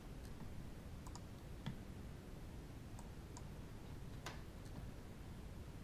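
Faint, irregular clicks of a computer mouse and keyboard keys as values are typed into settings fields, about half a dozen separate clicks over a low steady hiss.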